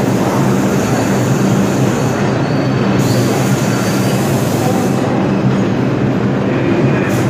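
R142 New York City subway train running, a loud steady rumble of wheels on rail with a low motor hum.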